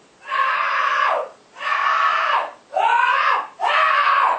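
A person screaming: four loud screams in quick succession, each about a second long and dropping in pitch at its end.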